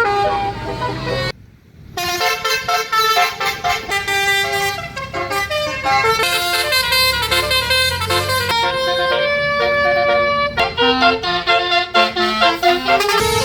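Bus 'Basuri' telolet horn, a multi-tone electric horn, playing a melody of held notes that change quickly, broken off briefly about a second and a half in before it plays on.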